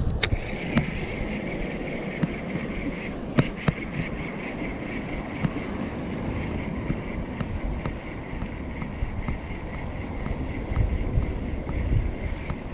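Wind buffeting the microphone with a low, uneven rumble, under a rapidly fluttering high buzz that drops out briefly near the end. A few sharp clicks come in the first few seconds.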